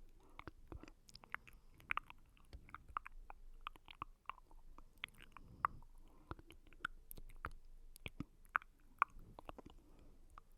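Close-miked wet mouth sounds for ASMR: rapid, irregular lip and tongue clicks and smacks, several a second, with soft low swells in between.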